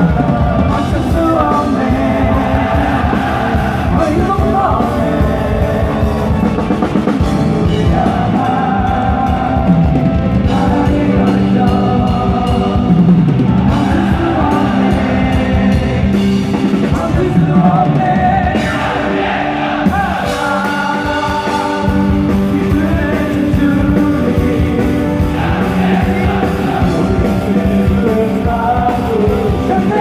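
Live Christian praise song: a band with drums playing steadily, with singing over it.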